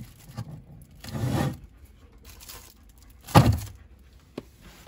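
Cling film rustling over a bowl as chestnuts are taken out of a refrigerator, then one loud thunk about three and a half seconds in and a small click near the end.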